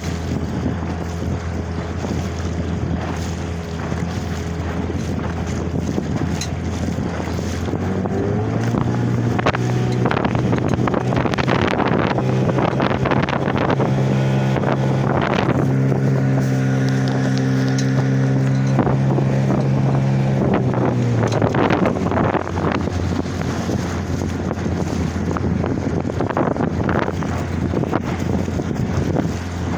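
Mikatsu 9.9 hp outboard motor running, speeding up about eight seconds in and easing back down about twenty-one seconds in. Waves splash against the boat and wind buffets the microphone throughout.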